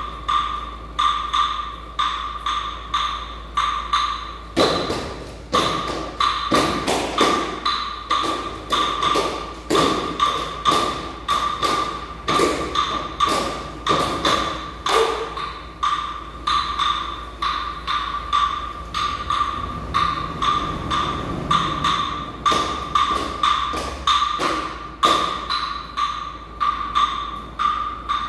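A hand-held percussion instrument, wood-block-like, struck in a steady beat of about two strikes a second with a bright, ringing tone. From about five seconds in until about fifteen seconds, and again briefly later, irregular thumps and knocks join it, which are dancers' feet striking a wooden studio floor.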